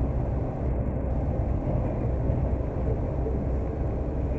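Inside a moving bus: the engine's steady low rumble mixed with road noise as it drives along.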